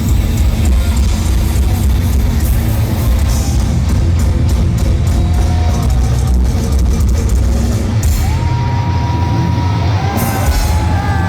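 Thrash metal band playing live at full volume: distorted electric guitars, bass and drum kit, with long held notes coming in over the band in the last few seconds.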